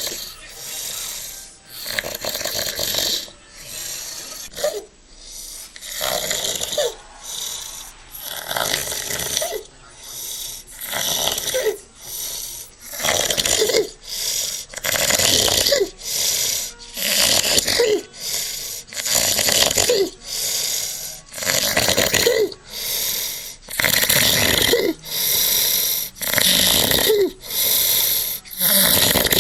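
A man snoring very loudly, a harsh rasping snore on each breath about every two seconds, growing louder in the second half.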